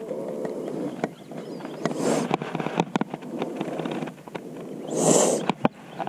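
Handling noise from a camera rig being set up: scattered clicks and knocks, with two breathy gusts, one about two seconds in and one near the end.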